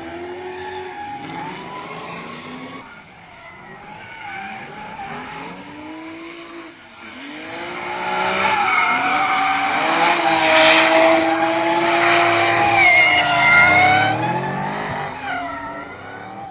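Drift car engine revving up and down as the car slides, with tyre squeal. It grows louder about halfway through, peaks with a burst of tyre noise, then fades near the end.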